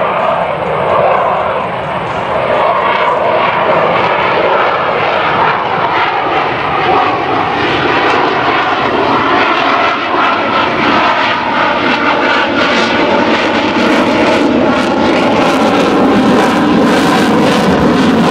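F/A-18 Super Hornet's twin jet engines pushed to high power as it pulls out of a slow high-alpha pass. The loud jet noise carries slowly gliding tones and grows harsher and brighter in its upper range about two-thirds of the way through.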